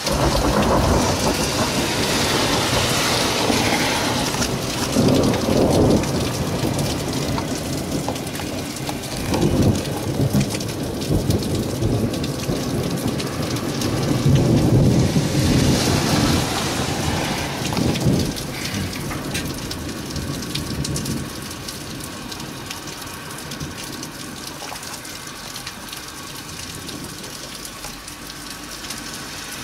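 Thunder rumbling after a lightning strike, swelling several times in long rolls through the first two-thirds, then dying away, over a steady hiss of rain.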